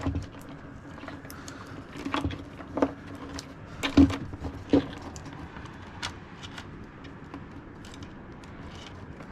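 Scattered clicks, rattles and knocks of a stereo head unit and its wiring being handled and pushed back into the wall opening, the loudest knock about four seconds in.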